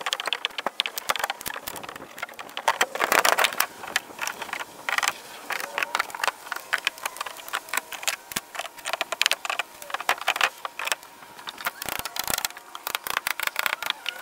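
Rapid, irregular clatter of hammer blows, knocks and clicks from plywood shed flooring being hammered and pried up off its joists, sped up by the time-lapse.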